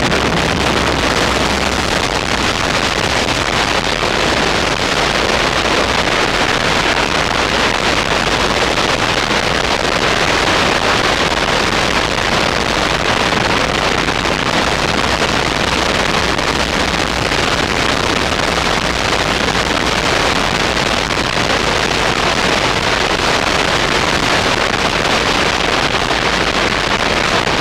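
Steady wind rush on the microphone of a motorcycle cruising at road speed, the engine and tyre noise buried under it with no clear pitch change.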